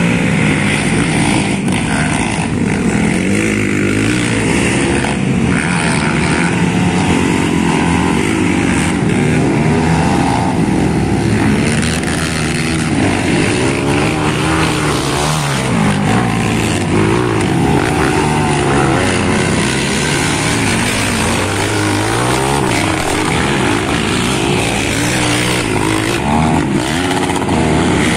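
Racing ATV engines running hard around a dirt track. Their pitch keeps rising and falling as the riders rev and ease off, with overlapping engine notes.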